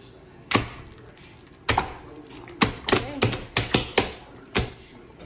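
Homemade slime (glue, soda and contact-solution activator) being squeezed, stretched and slapped in a plastic tub. It gives a quick run of about nine sharp, irregular pops and snaps.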